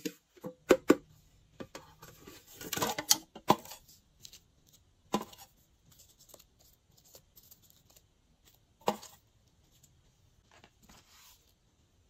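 Thin plastic slime trays handled by hand: sharp plastic clicks and taps, with a burst of crackling about three seconds in and single clicks around five and nine seconds.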